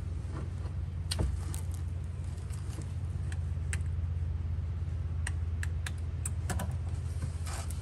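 Scattered small clicks and taps as hands work a plug-in connector and its clip at the top of a rear shock absorber, with a sharper click about a second in and a run of clicks around five to seven seconds in. A steady low hum runs underneath.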